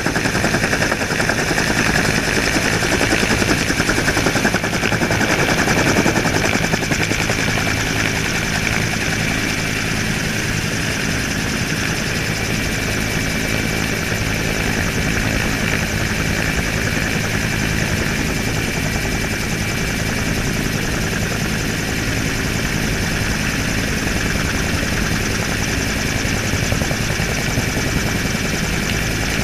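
Helicopter in flight, heard close up from a camera mounted on the airframe: steady rotor beat and engine noise with a steady high whine, a little louder in the first few seconds.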